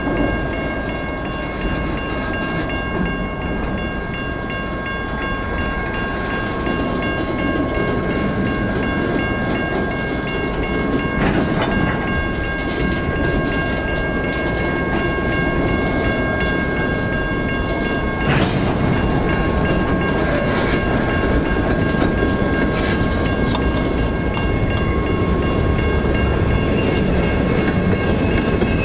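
Freight train of loaded gondola cars rolling past close by: a steady rumble and clatter of steel wheels on the rails, with a high, steady squeal ringing over it throughout.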